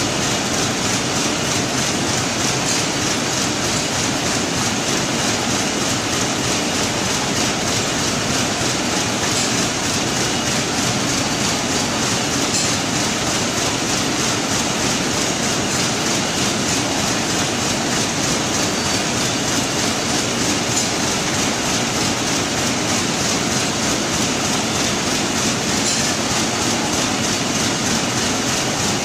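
Warp knitting machine running at speed, knitting plastic balcony netting: a steady, very fast, even mechanical clatter with a hiss.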